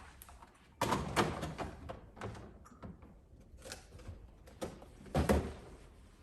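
Small containers and other items being set down and shuffled on refrigerator shelves: scattered knocks and clatters, with a burst at about one second and a heavier thud about five seconds in.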